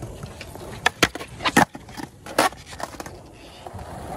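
Skateboard wheels rolling on smooth concrete, with several sharp clacks of the board in the first couple of seconds.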